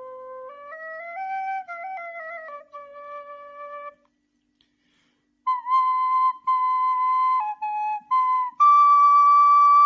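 Solo nay flute playing a melody in stepped notes. It breaks off for about a second and a half around the middle, then comes back louder and settles on a long held note near the end.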